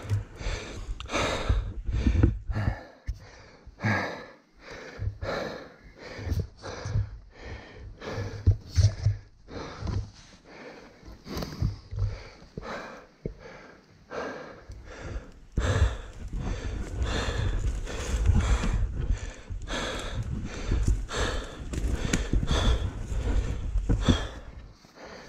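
A man breathing hard and fast from heavy exertion, about two loud gasping breaths a second, close to the microphone.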